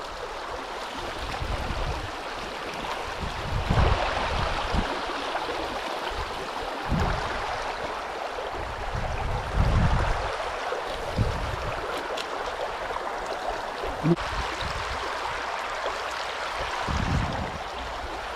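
River water running steadily over shallows, with a few dull low thumps scattered through it.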